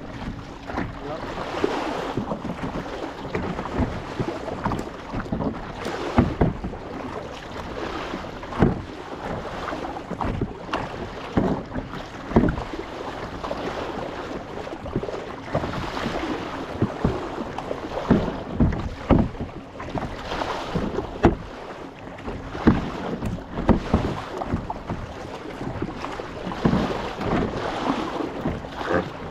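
Kayak paddles dipping and pulling through seawater, with an irregular splash at each stroke, roughly one every one to two seconds, over the steady wash of water against the hull.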